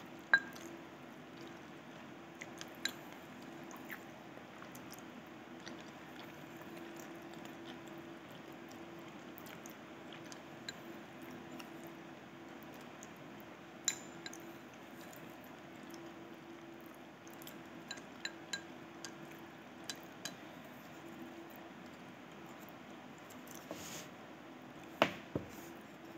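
Wooden chopsticks clicking and scraping against a ceramic rice bowl every few seconds, with soft chewing between, over a steady low hum.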